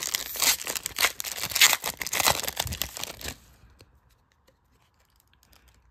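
Foil wrapper of a Donruss Optic basketball card pack being torn open and crinkled, a dense crackle lasting about three and a half seconds. Faint light clicks follow as the cards inside are handled.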